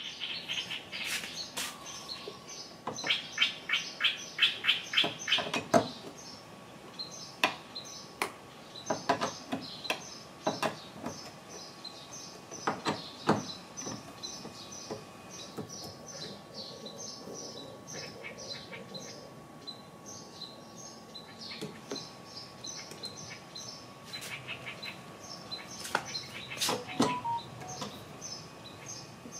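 Small birds chirping again and again, over scattered clicks and taps of hand tools working on a car door's side-mirror mount. The loudest part is a fast run of clicks a few seconds in.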